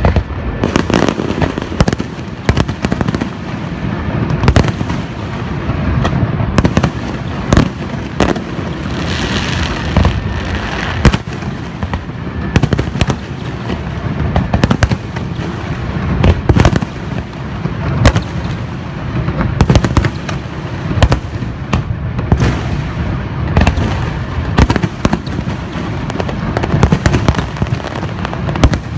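Fireworks display: a dense barrage of aerial shells bursting, many sharp bangs in quick succession over a continuous rumble of echoing detonations, with a brief hissing crackle about nine seconds in.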